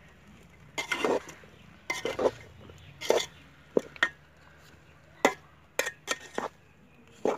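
A metal utensil clinking and scraping against a cooking pot in about a dozen irregular knocks, some in short clusters.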